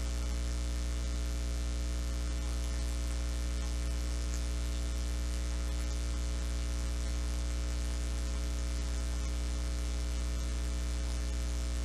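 Steady electrical mains hum, a low buzz with a stack of higher overtones over a faint hiss, unchanging throughout.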